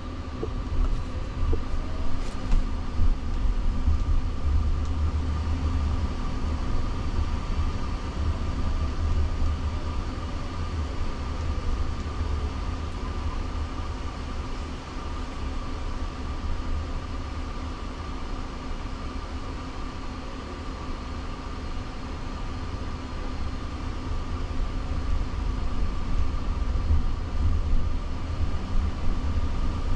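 Cabin noise of a Jaguar I-Pace electric car driving on city streets: a steady low rumble of road and tyres that swells a little a few seconds in and again near the end, with a faint steady hum above it.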